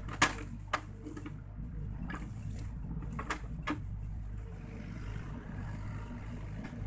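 Sany SY55C mini excavator's diesel engine running steadily under work, with a few sharp cracks and knocks from the bucket working through dead palm fronds and branches. The loudest crack comes about a quarter second in, and two more come at about three and a half seconds.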